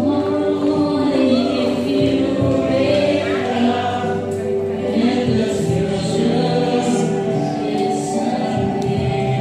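Music with a choir singing over held notes.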